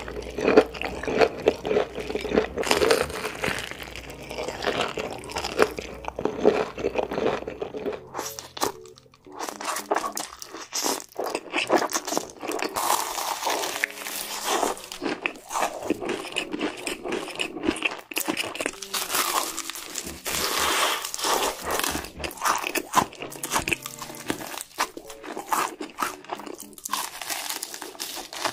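Close-miked crunching and chewing of fried chicken with a crushed Hot Cheetos crust: crisp bites and crackly chews one after another. The recording changes about eight seconds in, to another eater's crunching.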